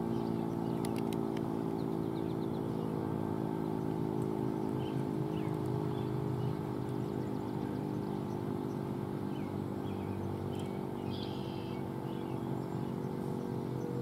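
Federal Signal Model 7 outdoor warning siren sounding a steady alert tone, a held chord of several pitches, with faint bird chirps.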